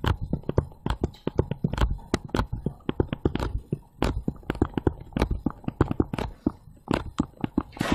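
Stylus pen tapping and clicking on a tablet screen while handwriting: rapid, irregular clicks, several a second.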